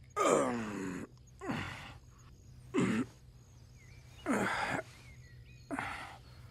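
Short wordless vocal sighs or groans, each falling in pitch, repeated about every second and a half.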